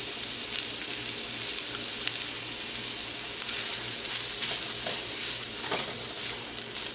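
Boiled rice, prawns and scrambled egg sizzling in hot oil in a wok as they are stir-fried, a steady frying hiss with a few light scrapes of the stirring.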